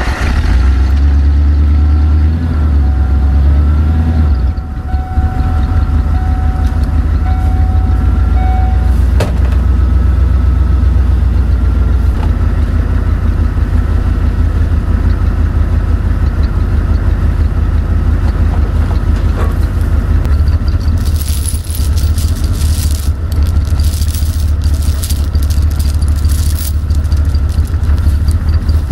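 Ford F-150 pickup's engine idling steadily, just started in the cold and warming up. From about two-thirds of the way in, metal chain clinks and rattles over the idle.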